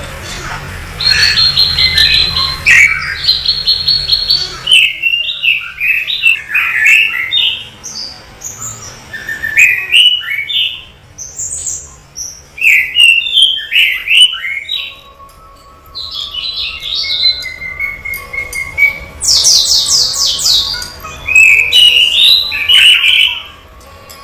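Bird chirping in bouts of short, varied calls, with quick rapid trills near the start and again near the end.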